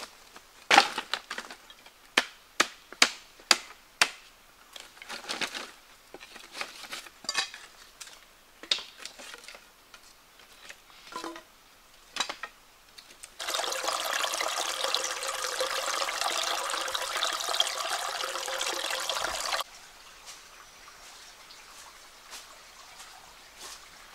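A string of sharp knocks and clicks, then water pouring steadily for about six seconds, starting and stopping abruptly.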